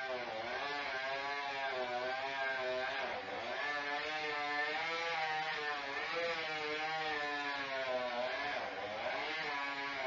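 Chainsaw engine running under load, its pitch rising and falling over and over as it cuts.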